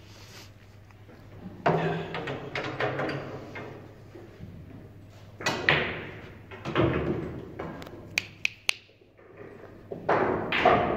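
Pool-hall play sounds: several dull knocks that die away over about a second each, and about eight seconds in, a quick run of three sharp clicks of pool balls striking.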